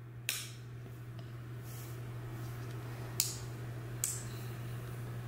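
Three sharp clicks of the switches and buttons on a wooden LED busy board toy being pressed and flicked, the last two about a second apart, over a steady low hum.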